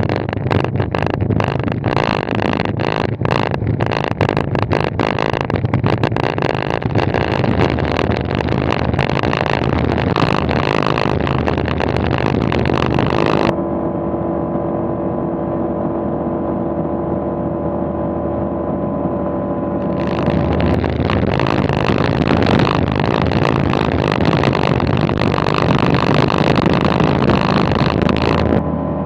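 Light aircraft's piston engine and propeller running on the ground, with rough wind-on-microphone flutter over it. Around the middle the sound turns duller for several seconds, with a steady multi-tone engine hum, then the rougher, brighter sound comes back.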